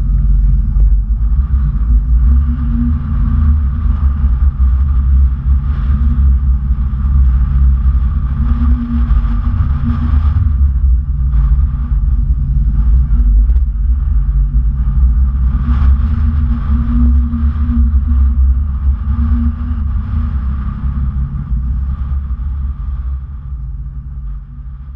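Tour boat's engine running with a steady low rumble, heard from on board, fading out over the last few seconds.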